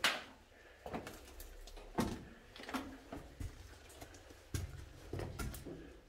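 Footsteps and scuffs on the dirt-and-stone floor of a narrow rock cave passage, irregular knocks and scrapes spaced roughly a second apart, the sharpest one right at the start.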